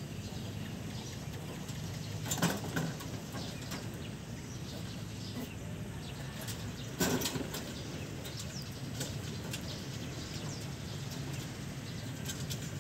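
Rabbits scuffling about in a wire hutch: two brief flurries of scrabbling and rustling, about two seconds in and again about seven seconds in, with scattered faint ticks over a steady low hum.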